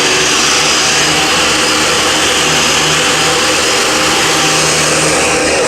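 Hoover canister vacuum cleaner running at full speed, a loud steady motor whine and rushing air.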